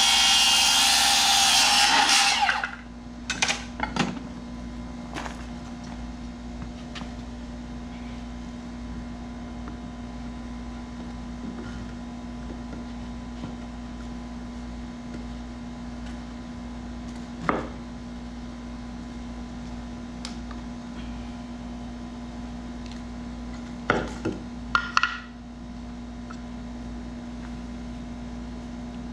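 Cordless circular saw cutting through a board for about two and a half seconds, then stopping. After it, only a few short knocks and taps, a cluster of them near the end, over a steady low hum.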